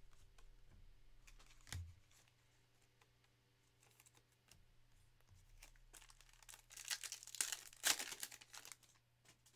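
A foil trading-card pack wrapper being torn open and crinkled in the hands, loud for about two seconds near the end. A single soft knock comes about two seconds in.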